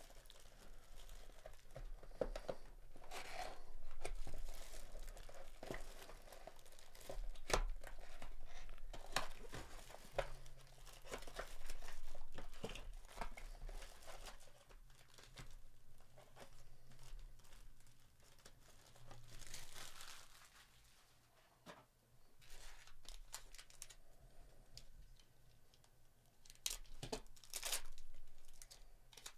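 Plastic shrink-wrap crinkling and tearing as it is stripped off a sealed cardboard box of trading cards, then the box's cardboard flaps being opened and foil card packs rustling as they are pulled out, in irregular bursts with sharp clicks.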